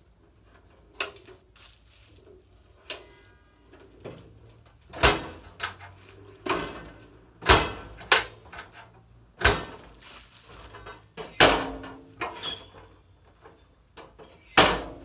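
Steel drawers of a US General tool cart sliding open and slamming shut on their metal slides, about ten times, each stroke ending in a sharp metal clack.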